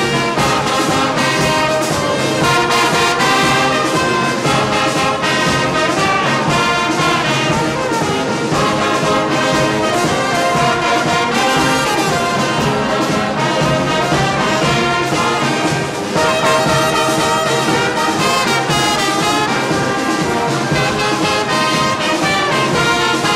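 Brass band playing: trumpets and trombones in full, continuous music over a steady beat.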